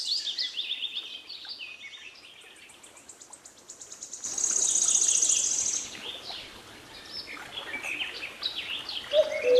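Small songbirds chirping and twittering, with a fast high trill about four to six seconds in, the loudest part.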